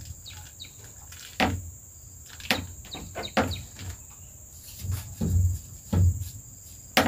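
A steady high insect drone, with several irregular knocks and low thumps over it, the heaviest about five to six seconds in.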